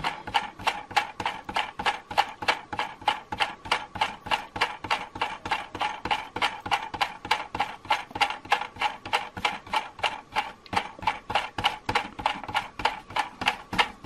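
The gear-and-peg drive of a Tyco US1 operating log loading bulldozer clicks steadily as it runs, about four to five clicks a second.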